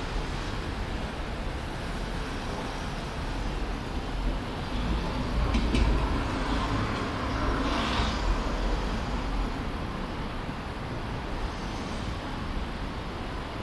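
City street traffic: a steady low rumble of vehicles, swelling a little about halfway through, with a couple of brief higher-pitched sounds around the middle.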